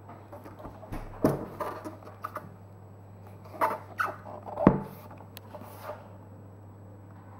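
Handling noise from a new Bridgestone Battlax BT39SS mini scooter tyre being turned and moved about: a few short knocks and rubbing rustles, the loudest a little past halfway, over a steady low hum.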